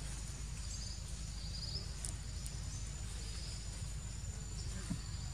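Outdoor ambience of insects chirping in short buzzy trills about once a second, over a thin steady high whine and a low rumble.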